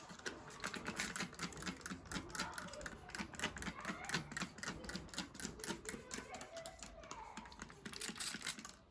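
A quick, uneven run of light clicks or taps, several a second, stopping just before the end.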